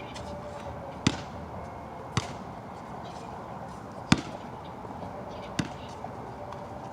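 A basketball bouncing on a wet outdoor court: four sharp, irregularly spaced thuds, over a steady hiss of rain.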